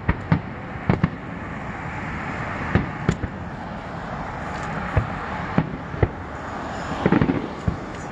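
Fireworks going off: sharp bangs at irregular intervals over a steady hiss, with a quick flurry of crackling pops about seven seconds in.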